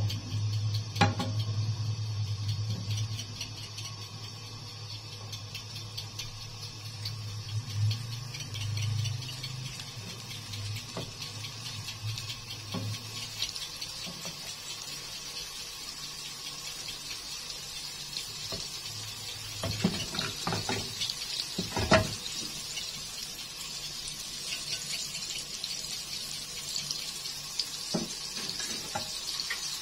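Butter melting and sizzling in a nonstick frying pan, the fizzing hiss building as the butter heats and begins to bubble. A wooden spatula knocks against the pan a few times.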